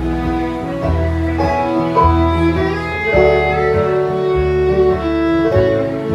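Bluegrass band playing an instrumental break: a fiddle carries long held notes over banjo, acoustic guitar and upright bass.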